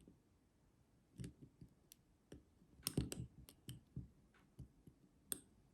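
Faint, scattered small metallic clicks and taps of a lock pick and tension wrench working in the keyway of a Master Lock Pro Series 6321 padlock, with a cluster of louder clicks about three seconds in.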